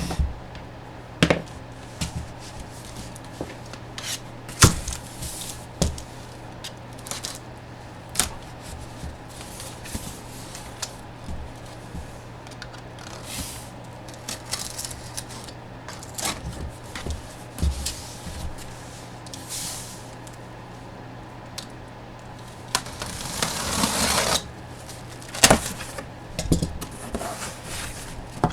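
Hands handling photo packs and box packaging: scattered knocks and clicks, with a longer rustle of packaging near the end, over a steady low hum.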